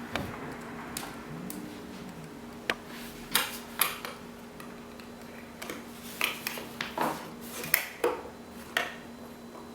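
Second small screw of the motion sensor's backing plate being driven into the wall with a screwdriver: a string of irregular light clicks and short scrapes of metal and plastic.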